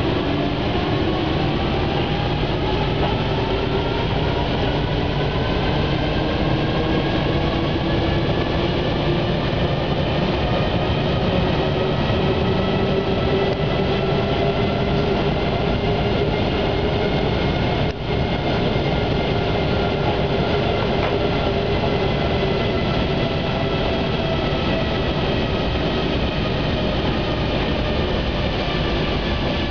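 Rubber-tyred MP05 metro train running through a tunnel, heard from its front cab. The electric traction whine climbs in pitch over the first few seconds as the train gathers speed, then holds steady over the running rumble. Near the end it sinks a little as the train slows.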